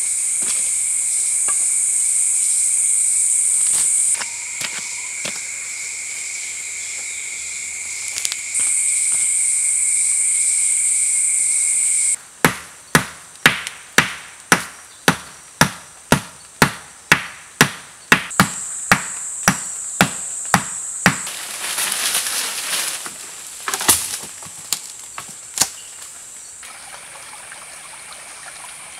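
Forest insects buzzing in a high, steady drone, one layer of it dropping out for a few seconds and coming back. About twelve seconds in, a run of sharp chopping knocks, about two a second for some nine seconds, as a sapling is chopped at its base; a few scattered knocks follow, and near the end a shallow creek's water runs softly.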